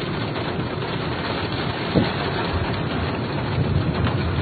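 Steady noise of a car driving, heard from inside: engine and tyre rumble under an even hiss, with a brief rising sound about two seconds in.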